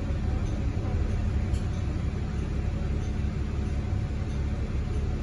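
Interior cabin noise of a 2018 Nova Bus LFS hybrid-electric bus under way: a steady low rumble of the drivetrain and road noise.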